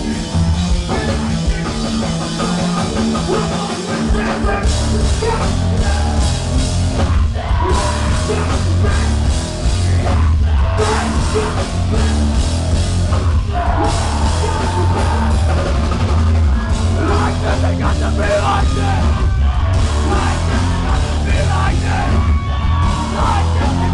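Heavy rock band playing live at full volume, with drums, electric guitars and bass and a very heavy low end. The full band hits harder from about four and a half seconds in.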